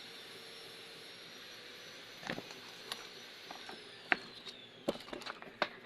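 A small electric motor with a fan runs with a steady hiss. About three and a half seconds in, it winds down with a falling whine. Several sharp clicks and taps from tools or parts being handled come in the second half.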